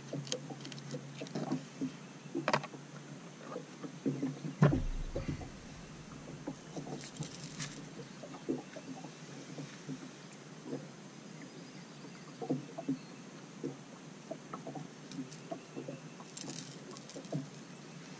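Small taps, scrapes and rustles of bait being handled: a knife cutting a shad on a plastic bucket lid, then a cut shad head being put on a hook. One louder thump comes about four and a half seconds in.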